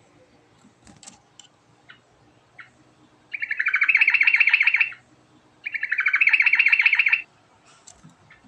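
Yellow-vented bulbul (trucukan) singing: two rapid, rolling trilled phrases of about a second and a half each, the second following shortly after the first, with a few faint short chirps before them.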